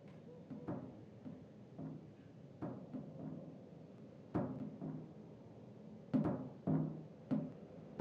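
Music of low, pitched drum strikes, timpani-like, at an uneven pace, each ringing and dying away. The hits grow louder towards the end, with three in quick succession.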